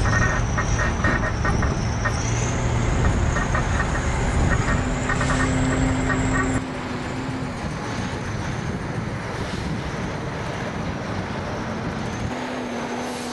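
Engine of a heavy military truck running, with a rapid irregular clicking over it in the first half. About halfway through the sound drops abruptly to a quieter steady engine noise, with a thin high whine throughout.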